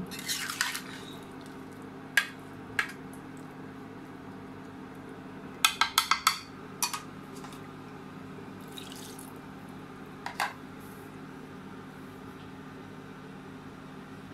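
Fish and squash curry simmering in a kadai on an induction cooktop, with liquid bubbling over a steady low hum. Scattered sharp clicks and pops, including a quick run of about five clicks around six seconds in.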